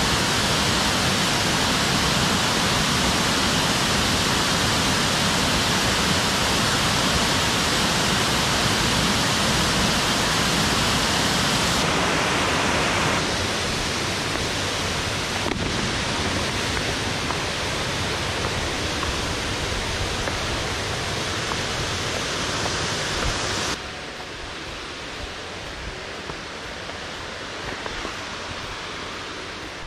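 Crabtree Falls waterfall rushing, a loud steady roar of falling water. It drops abruptly quieter about twelve seconds in and again near the end.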